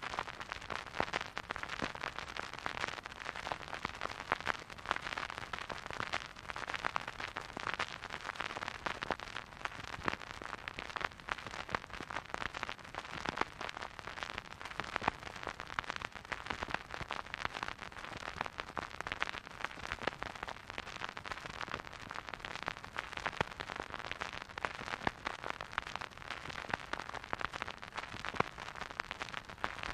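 Surface noise of a spinning vinyl record on a record player with no music: a steady soft hiss thick with small crackles and pops.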